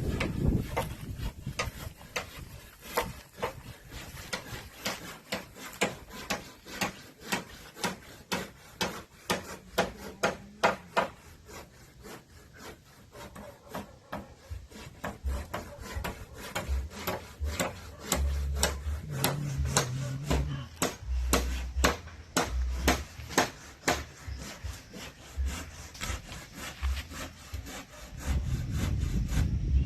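Hand saw cutting wood in a run of short rasping strokes, about two a second.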